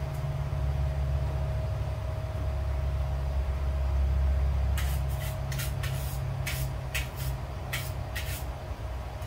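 A hand wire brush scrapes hot steel in a coal forge fire, about eight quick strokes in the second half, scrubbing off burned paint and coating. Underneath is a steady low rumble from the forge.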